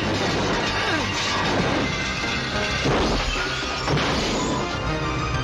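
Action-film soundtrack: cars smashing into each other and through metal barriers, with breaking glass, over loud music.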